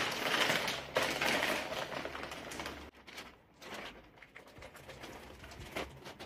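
Thin plastic packaging crinkling and rustling as it is pulled open by hand, busiest for about the first three seconds. After that there are quieter scattered ticks and handling noises.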